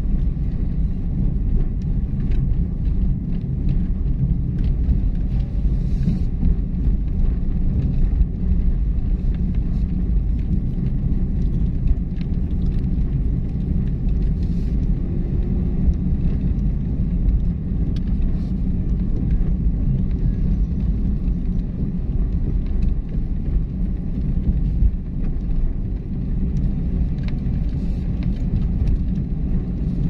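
Car driving on the road, its engine and tyres making a steady low rumble.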